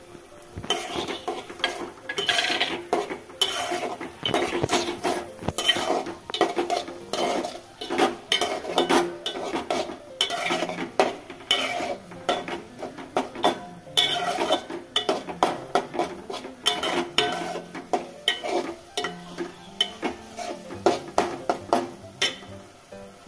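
Long steel spatula scraping and clinking against the sides and bottom of an aluminium pot as fried prawns are stirred through thick curry masala, in quick irregular strokes.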